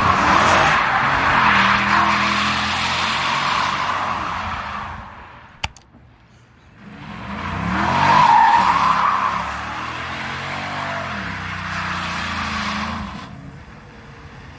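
2012 Chevrolet Caprice PPV's L77 V8 revving hard while the rear tyres squeal through smoky donuts. It comes in two stretches with a short lull between them. The second is loudest about eight seconds in, with the engine pitch swinging up and down, and it fades near the end.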